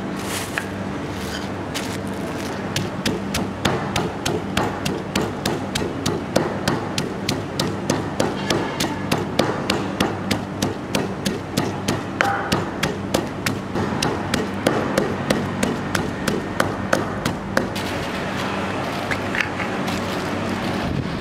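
Wooden pestle pounding chillies and salt in an earthenware mortar: a steady run of dull strikes, about three a second, that stops near the end.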